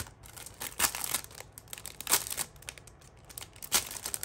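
Clear plastic sleeve crinkling as sticker sheets are handled and slid out of it, with a few sharper crackles.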